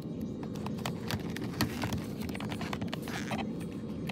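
Small clicks and taps from fingers handling a football helmet's pads and plastic parts, with a brief scratchy rustle about three seconds in, over a steady low hum.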